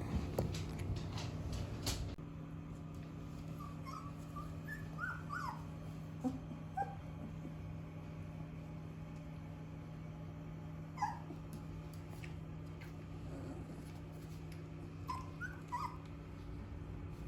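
Young puppies, about 17 days old, giving short high squeaks and whimpers in scattered little clusters, over a steady low hum. A few knocks and rustles come in the first two seconds.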